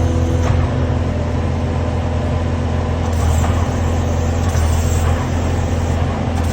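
Kubota SSV97 skid steer's diesel engine running steadily under the operator, its hydraulics powering the cold planer attachment. A few higher tones in the sound drop away about half a second in.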